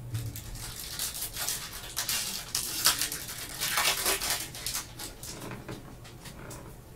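Foil trading-card pack wrapper being torn open and crinkled in gloved hands: a rapid run of crackles and rustles that eases off about five seconds in.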